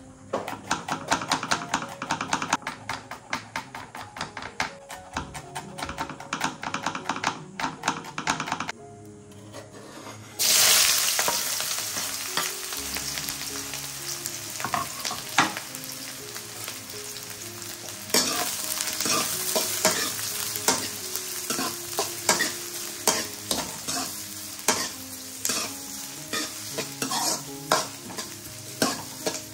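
A knife chopping rapidly on a wooden cutting board. About ten seconds in, sliced onions go into hot oil in a steel karahi with a sudden loud sizzle that keeps going while a metal ladle stirs them, clinking and scraping against the pan.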